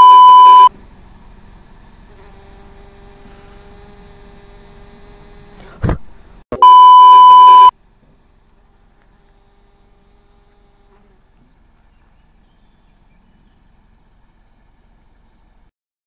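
Two loud test-pattern beeps of about a second each, one at the start and another about six and a half seconds in, with a quieter steady buzz between them. After the second beep there is only faint, steady background sound.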